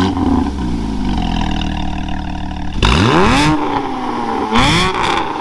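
Porsche Cayman GT4's 3.8-litre flat-six through a full IPE exhaust, just started: the start-up flare settles to a steady idle. Then it is revved twice, about three seconds in and again near the end, each rev rising sharply and easing back.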